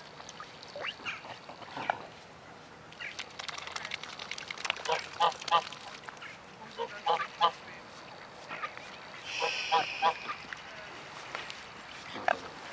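Mute swans and mallards calling on the water: short nasal calls in quick runs of two or three, repeated a few times, with a brief hiss a little past halfway.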